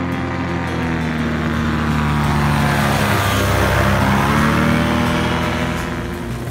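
Zigolo ultralight aircraft's engine and propeller on a low pass, growing louder as it approaches, loudest about four seconds in as it goes by, its pitch dropping and the sound easing off near the end.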